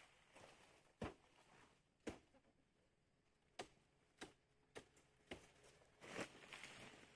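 Faint, sharp knocks, about six of them at irregular intervals, followed by a brief rustling swell near the end.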